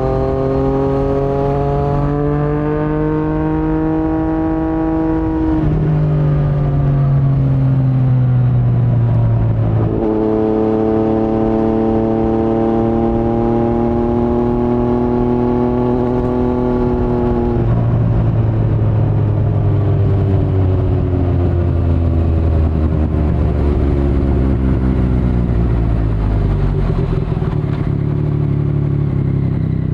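2019 Yamaha MT-09's three-cylinder engine running through an Akrapovic carbon full-system exhaust with no dB killer, heard from the rider's seat. The engine note climbs under throttle, drops suddenly at a gear change about six seconds in, jumps back up around ten seconds, then from about eighteen seconds falls steadily as the bike slows off the throttle.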